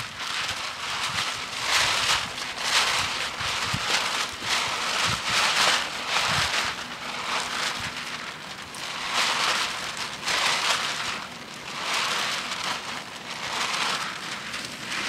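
Large sheets of printed paper crackling and rustling as they are pulled off a tree trunk and bunched up by hand, in uneven surges of crackle.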